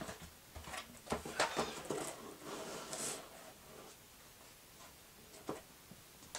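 Handling noise of a cardboard model-kit box being moved and set down on a cutting mat: a run of light knocks and rustles in the first three seconds, then quieter, with one more knock near the end.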